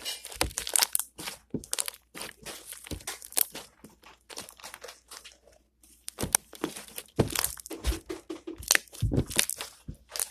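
Slime being squeezed and stretched by hand, with irregular crackles and pops as trapped air bubbles burst.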